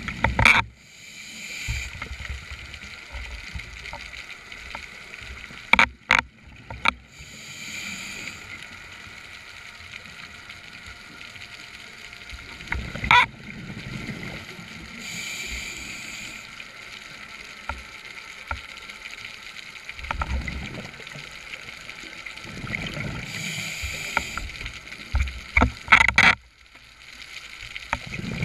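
Scuba diver's regulator breathing underwater. A hissing inhale comes every seven or eight seconds, each followed by a long rumble of exhaled bubbles, with several loud sharp clicks and knocks in between.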